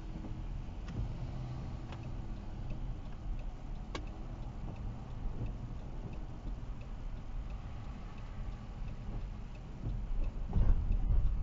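Car driving in the rain, heard from inside the cabin through a dash cam: a steady low road and engine rumble with a faint regular ticking, and a louder low rumble near the end.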